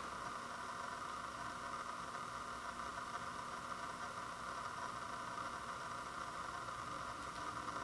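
Steady low hiss of background noise, with no distinct handling clicks.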